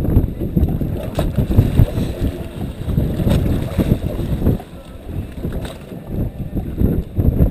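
Wind buffeting the microphone in gusts, with choppy water slapping against a small boat's hull and a few brief knocks.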